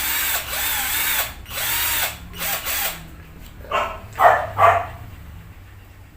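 INGCO 12V cordless drill motor run in about five short trigger bursts, each whirring up and winding down, during the first three seconds. About four seconds in, three short loud barks, like a dog's, are the loudest sound.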